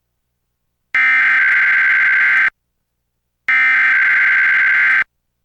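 Two bursts of Emergency Alert System SAME header data, a harsh buzzy digital screech about a second and a half long each, separated by about a second of silence. These are repeats of the coded header that opens an EAS required monthly test.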